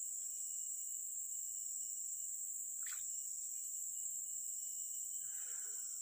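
Steady high-pitched drone of insects in tropical forest, with a brief falling chirp about halfway through.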